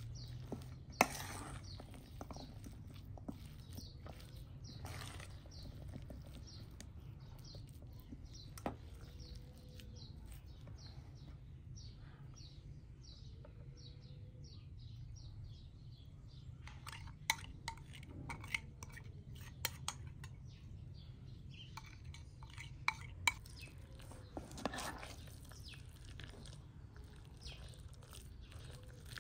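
Cutlery and dishes clinking, with a run of short scraping strokes and scattered sharp clinks that bunch together in the second half.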